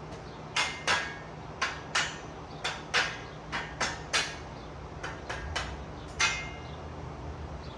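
A series of about a dozen sharp metal-on-metal knocks on the steel parts of a bolt-together race-car pit lift, some ringing briefly, coming in small irregular groups and stopping about six seconds in.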